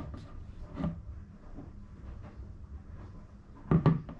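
Quiet room tone with a steady low hum, and a few faint short handling sounds as a bicycle saddle is held and turned in the hands, a couple of them near the end.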